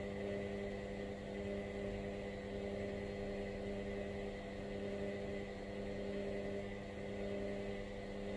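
Hoover washing machine running on its cotton 90 programme: a steady, even hum with several tones and some hiss that cuts off abruptly near the end.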